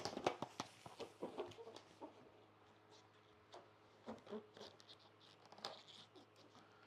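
Latex balloons squeaking and rubbing against each other as they are handled and tied, in short faint squeaks mixed with light ticks and rustles.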